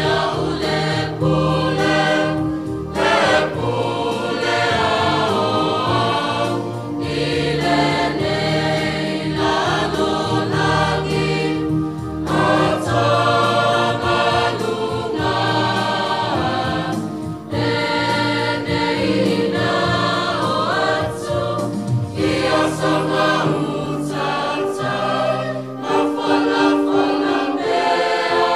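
Samoan church choir of men's and women's voices singing a hymn together, with sustained low notes under the melody.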